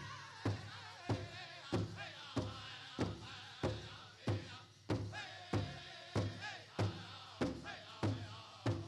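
Pow wow drum group playing a chicken dance song: one steady drumbeat struck about every 0.6 seconds on the big drum, with high-pitched group singing over it.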